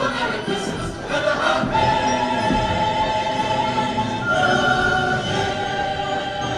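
Choral music: a choir singing long held chords, changing to a new chord about four seconds in.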